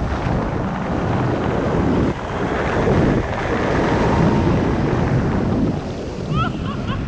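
Wind from a tandem paraglider's flight buffeting the pole-mounted camera's microphone: a loud, rumbling rush of air that swells and dips.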